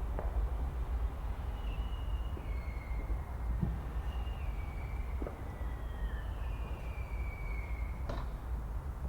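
Fireworks barrage heard over a steady low rumble, with a few faint pops and a sharper crack about eight seconds in. Several thin whistling tones drift slightly down in pitch along the way.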